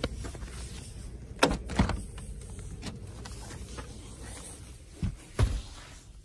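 A snow-covered car door being worked open after sticking, with two sharp knocks about a second and a half in, then two dull, deep thumps near the end.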